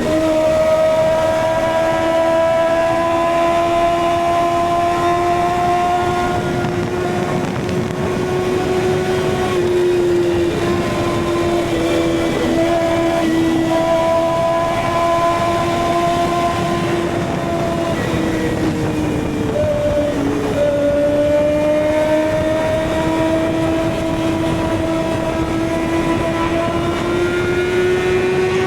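Kawasaki ZX6R inline-four engine running at high revs under way, its pitch slowly climbing, with a brief drop about twenty seconds in before it picks up again.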